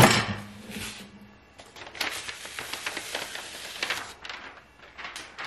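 A manual heat press clamping shut with a sharp clack. A couple of seconds later comes a crackling rustle of parchment paper as the press is opened and the paper is lifted off the pressed transfer.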